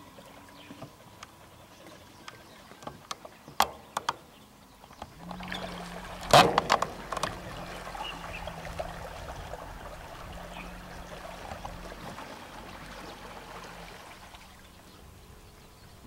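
Radio-controlled fiberglass model boat running on the water: a steady motor hum with water noise starts about five seconds in and dies away near the end. Scattered sharp clicks come before it, and there is a loud knock just after it starts.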